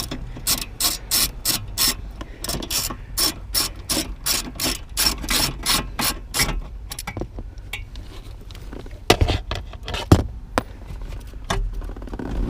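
Hand ratchet wrench clicking rapidly, about four clicks a second, as it backs out the fasteners holding a panel under a car's dashboard. The clicking stops after about seven seconds, followed by a few louder knocks.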